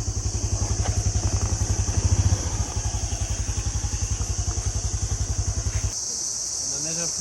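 Motorcycle engine idling with an even putter, then switched off about six seconds in. Insects, cicadas or crickets, keep up a steady high drone.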